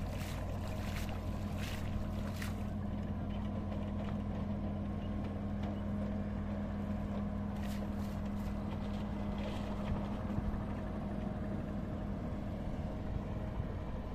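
Water splashing and sloshing as a fine-mesh fishing net is dragged and lifted through shallow water, in bursts near the start and again about halfway through. Under it runs a steady low engine hum that fades out after about ten seconds.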